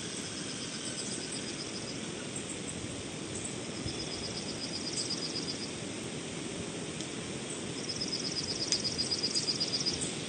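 Outdoor nature ambience: bouts of rapid, high-pitched trilling chirps, three times, the last and loudest near the end, over a steady low rushing background.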